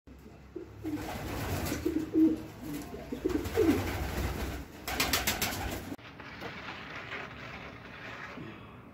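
Racing homer pigeons cooing: several low, rising-and-falling coos in the first half. A short burst of rapid clatter comes about five seconds in. After that it drops quieter, with one faint coo near the end.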